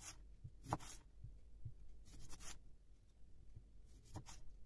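Kitchen knife slicing a cucumber lengthwise into thin strips on a plastic cutting board: a few faint cuts and taps of the blade on the board, with several close together about two seconds in.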